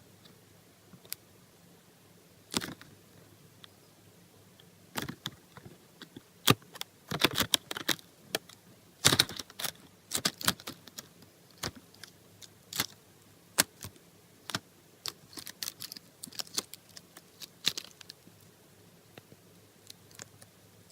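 Slime being squeezed and poked by hand, giving irregular sharp clicks and pops, thickest in the middle stretch.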